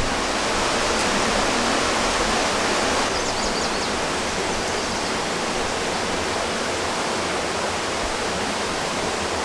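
Steady rushing of running water, an even hiss that eases slightly about three seconds in.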